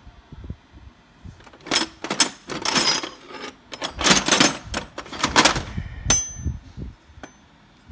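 Steel combination wrenches clinking and clattering against each other as they are handled in a toolbox drawer: a handful of short metallic rattles, one ringing clink about six seconds in.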